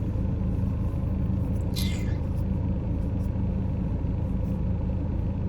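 Steady low rumble of a moving car, heard from inside the cabin, with a brief hiss about two seconds in.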